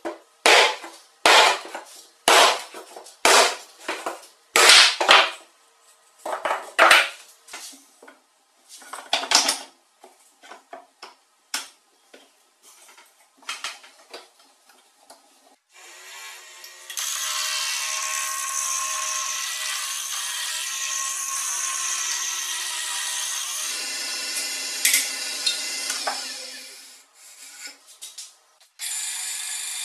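A hatchet chopping the corners off a square wooden block, about a dozen sharp blows over the first ten seconds, followed by a few lighter knocks. From about halfway a wood lathe runs steadily with a turning tool cutting the spinning wood, stopping near the end before a machine starts up again.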